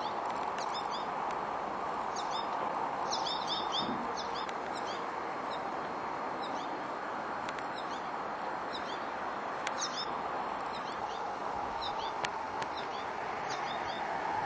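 Small songbirds chirping: short, quick chirps scattered throughout, some in rapid clusters of three or four, over steady background noise.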